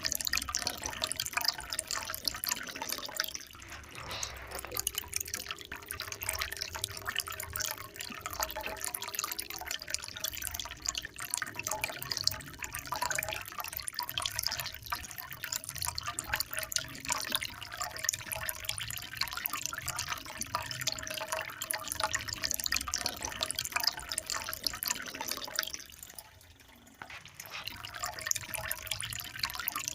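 Water trickling and splashing steadily, a dense patter of small drips and splashes, easing briefly into a quieter lull near the end.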